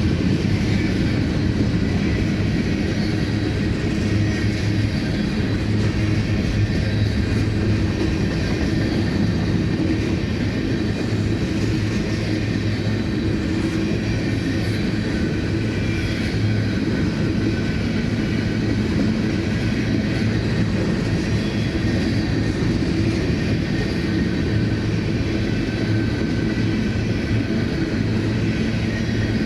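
Empty covered hopper cars of a long freight train rolling past with a steady rumble.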